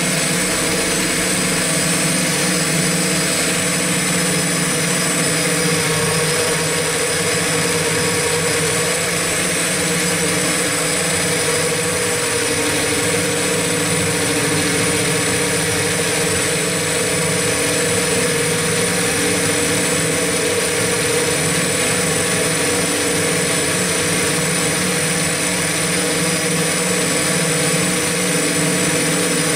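X8 coaxial octocopter's electric motors and propellers running steadily in flight, heard from on board. It is a dense, even whine of several held tones over propeller hiss, with no change in pitch.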